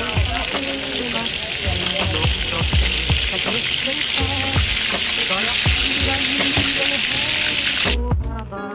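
Fish pieces sizzling in hot oil in a skillet, with tongs moving and turning them in the pan. The steady sizzle stops abruptly near the end.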